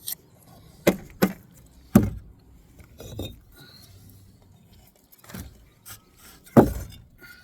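A steel bricklaying trowel knocking and scraping against brick and wet mortar while the mortar bed is smoothed out. About six sharp knocks, the loudest about two seconds in and near the end, with softer scraping between them.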